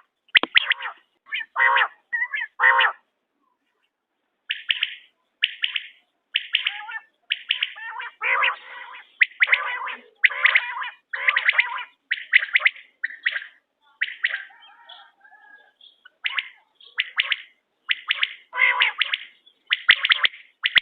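Quail (bater) calling: short, sharp notes repeated in quick series, about one to two a second, with a pause of about a second and a half near the start.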